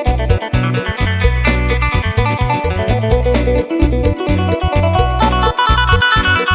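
Lam phloen (Isan folk-pop) rhythm played on a Yamaha PSR-series arranger keyboard: a phin (Thai plucked lute) voice picks a quick melody over a steady drum beat and bass line.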